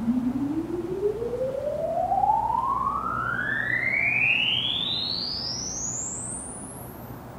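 A single pure tone sliding steadily up in pitch, from a low hum to a very high whistle that fades out near the end, over a steady background hiss.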